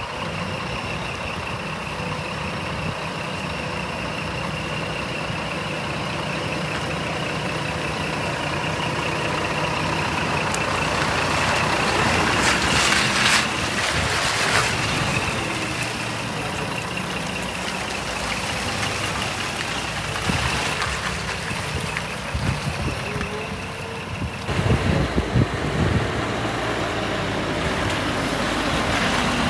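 Scania R420 truck's diesel engine running steadily at idle. About halfway through there is a loud burst of hiss, and later a stretch of uneven, louder low bursts.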